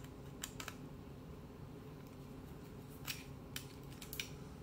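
Faint, scattered clicks and taps of a small screwdriver turning screws and handling small parts in a plastic Trimline telephone handset, over a low steady hum.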